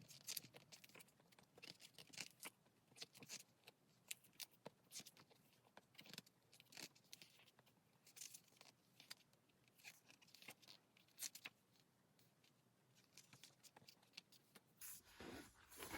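Faint paper flicks and rustles as the pages of a photobook are flipped through quickly.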